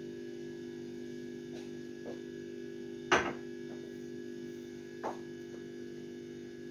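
Steady low electrical hum, with a few light knocks from handling things on the table, the loudest about three seconds in and a smaller one about five seconds in.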